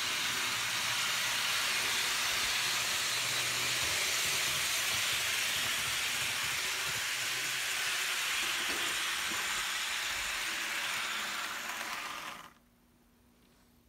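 HO-scale model train, a Lima DSB Class MZ diesel locomotive with passenger coaches, running on the layout track: a steady rushing whirr of motor and wheels on rail with a low hum underneath. It cuts off abruptly about twelve and a half seconds in, leaving near silence with a faint steady hum.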